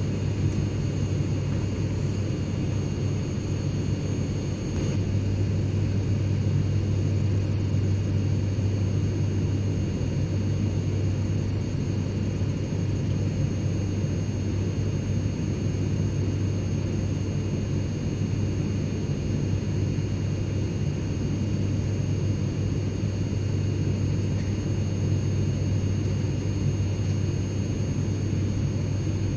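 Private jet cabin ambience: the steady drone of the jet engines and airflow heard from inside the cabin, a deep hum with a few faint high whining tones above it.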